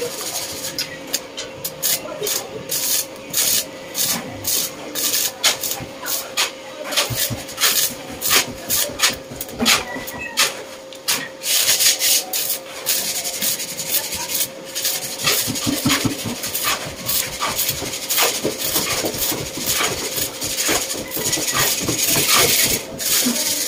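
Hand scraping or filing on metal: short, irregular rasping strokes, a few each second, over a faint steady hum.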